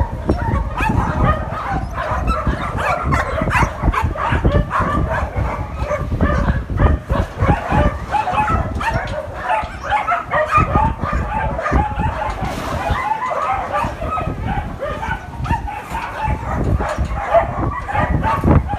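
A shelter pack of many dogs barking and yipping at once, a continuous din of short overlapping calls with no pause.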